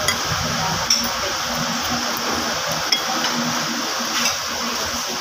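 A metal spoon clinking and scraping against a ceramic bowl while eating, with a few sharp clinks over steady background hiss.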